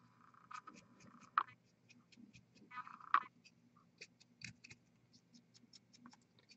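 Faint scratching and light ticking of a fine paintbrush working paint onto a hand-held miniature, with brief rasps of the brush about one and a half and three seconds in.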